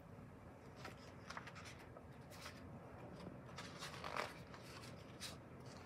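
Faint rustling and soft taps of a picture book being opened and its cover and endpaper pages turned, with the loudest rustle about four seconds in.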